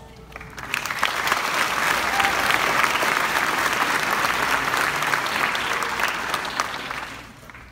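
Audience applauding: it swells up within the first second, holds steady, and dies away near the end.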